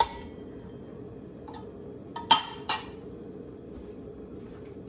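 Two sharp metallic clinks about half a second apart, a little past two seconds in, as metal kitchenware (a steel measuring cup and a can) is set down on the counter, each with a short ring. A steady low hum runs underneath.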